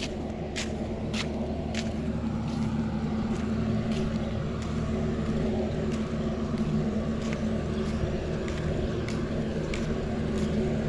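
Steady low engine drone, with footsteps on concrete clicking a little more than every half second.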